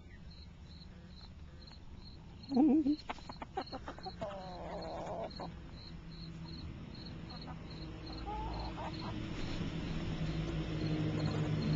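Crickets chirping steadily, a short high pulse about two or three times a second. A short, loud, low call comes about two and a half seconds in, with a softer warbling call a couple of seconds later, and a low rumbling noise builds from about eight seconds in.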